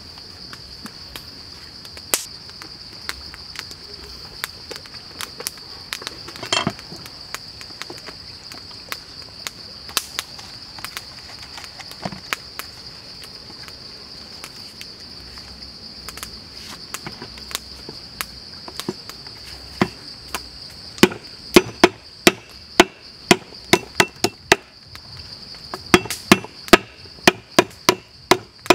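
Cleaver chopping lemongrass on a wooden board: two runs of sharp strokes in the last third, about two or three a second, the loudest sound. Under it a steady high drone of insects, with scattered light clicks of handling earlier on.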